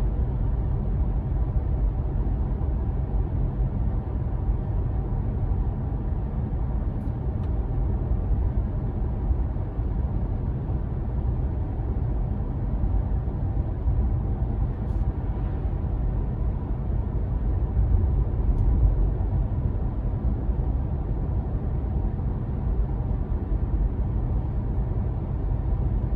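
Steady low road and tyre rumble inside the cabin of an electric Tesla Model 3 cruising at 45 mph.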